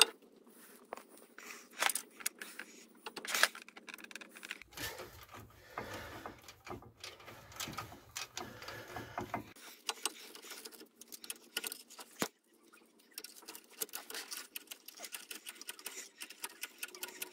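Socket ratchet clicking in short runs of rapid clicks as the brake caliper carrier bolts are wound in, with scattered metallic clinks.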